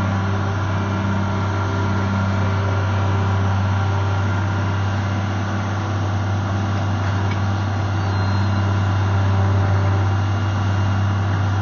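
Komatsu PC220 hydraulic excavator's diesel engine running with a steady low hum while the boom and arm are worked, getting a little louder about three-quarters of the way in.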